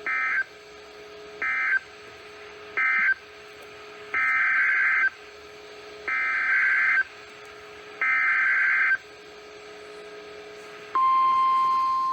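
Emergency Alert System SAME data bursts on NOAA Weather Radio: three short harsh buzzy bursts (the end-of-message code), then three longer ones (the header of the next alert, a tornado warning), each about a second or two apart. Near the end the steady 1050 Hz warning alarm tone starts.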